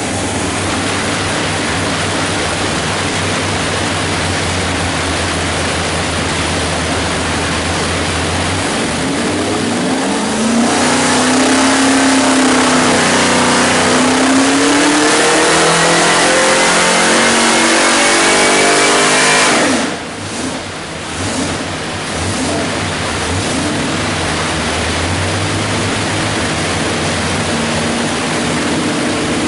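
383 cubic-inch small-block Chevrolet stroker V8 running on an engine dyno. It runs at a steady speed, then about nine seconds in it revs up and climbs steadily, louder, for about ten seconds in a dyno pull, before the throttle closes suddenly and it falls back to a steady lower speed.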